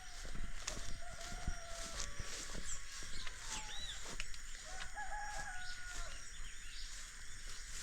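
Two long, held animal calls like a rooster's crow, one about a second in and another about five seconds in, the second wavering, over scattered short high bird chirps.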